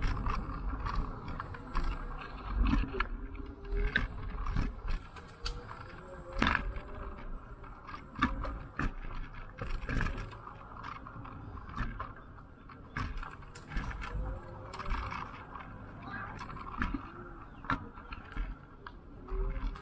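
Ninebot ES2 electric kick scooter ridden over a concrete street: irregular rattles and knocks as it goes over bumps and joints, over a low rumble.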